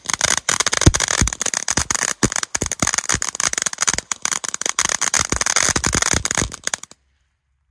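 Nico 'Funky Monkey' ground fountain firework spraying sparks: a steady hiss full of dense crackling pops with a few heavier bangs among them. It cuts off abruptly near the end.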